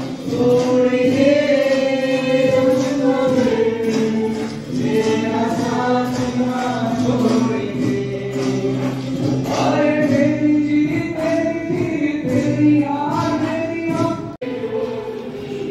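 Amplified live singing, a voice holding long melodic notes into a microphone with acoustic guitar accompaniment, heard in a large auditorium. The sound breaks off for an instant near the end, then the singing carries on.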